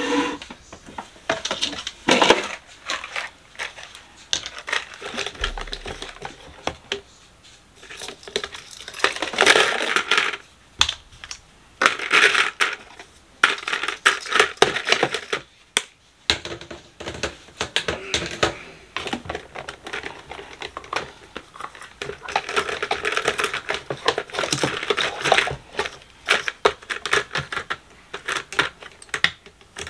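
Plastic hair accessories, combs and a round brush clicking and clattering as they are handled and set into a plastic organizer basket in a drawer, in irregular bursts of small knocks.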